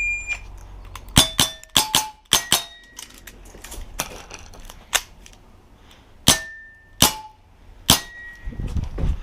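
A short electronic beep, then a string of sharp pops from a CO2 Dan Wesson 715 6mm action air revolver fired at a brisk pace. Several shots are followed by the brief metallic ring of a steel target being hit.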